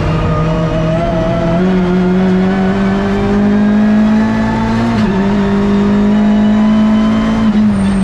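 Hyundai i30 N TCR race car's turbocharged 2.0-litre four-cylinder engine running hard under throttle, heard from inside the cockpit. Its note climbs slowly, then drops sharply about five seconds in at an upshift and starts climbing again.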